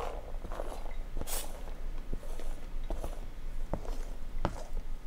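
Diced carrots and onions sliding off a flexible plastic cutting mat and pattering into a ceramic slow cooker crock, with several short light knocks spread through.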